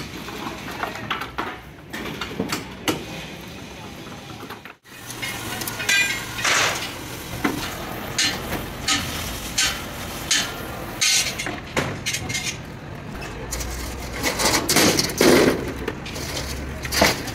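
Irregular hammer blows and metallic clanks on the rusted steel deck plates of an old Bedford truck's cargo bed as they are hammered and pried loose from the wooden bearers. Some blows ring briefly, and they come thicker from about five seconds in.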